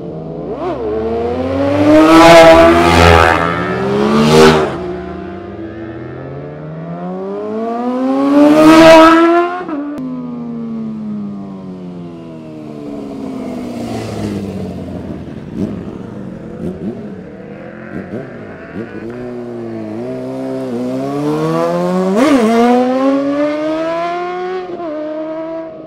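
Sportbikes passing one after another, each engine climbing in pitch as it accelerates out of the corner, then dropping in pitch as it goes by. The loudest passes come about two seconds in, about nine seconds in, and near the end. A car also goes by in between.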